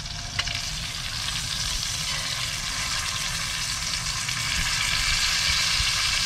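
Trout frying in hot oil in a small cast-iron skillet on a propane camp stove: a steady sizzle that grows louder toward the end. A metal utensil clinks once against the pan about half a second in.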